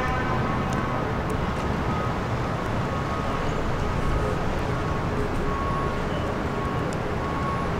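Diesel engine of a Wabtec-MPI R255 hybrid locomotive running steadily, a constant low rumble.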